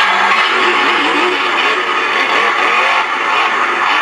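Recorded monster-truck engine revving sound effect played through the small built-in speaker of a New Bright RC Monster Jam Son-uva Digger toy truck. It is loud and steady, with the pitch rising and falling in short swells.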